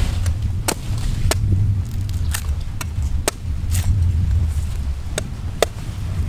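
Large knife chopping into the husk of a green coconut: about a dozen sharp strikes at an uneven pace, over a steady low rumble.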